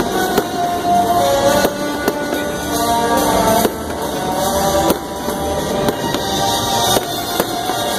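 Aerial fireworks shells bursting overhead in a string of sharp bangs, roughly one a second, with loud music playing alongside.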